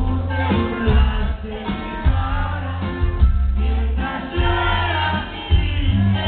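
A norteño band playing live: button accordion, twelve-string guitar, bass and drums, with men singing together over a strong bass line.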